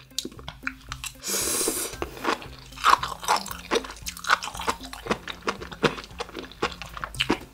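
Close-miked chewing of a mouthful of sea grapes (Caulerpa lentillifera), the small beads popping and crunching between the teeth in many quick crackles. About a second in there is a brief rush of noise lasting about half a second.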